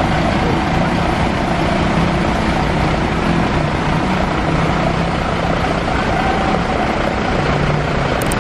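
A vehicle engine runs steadily under heavy road and wind noise, with a low hum throughout.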